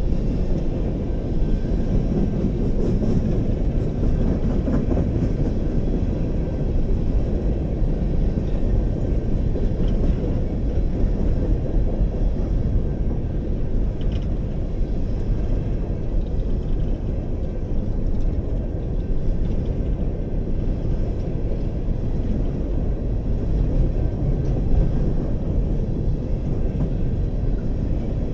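BNSF freight train of coal gondola cars rolling past, a steady rumble of steel wheels on the rails.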